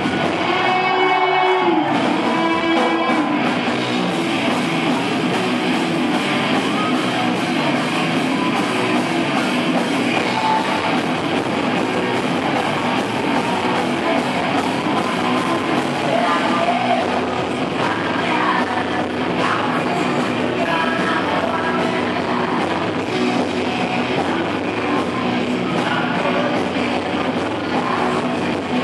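Rock band playing live at concert volume: electric guitar, drums and a sung vocal, heard from within the audience in a large hall.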